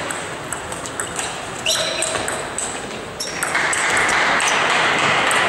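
Table tennis ball clicking sharply off the bats and the table in a fast rally, with background noise in the hall growing louder about three and a half seconds in.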